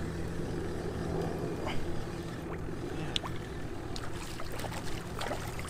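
A boat's motor running at low speed: a steady low hum that weakens a little past halfway, with a few small clicks over it.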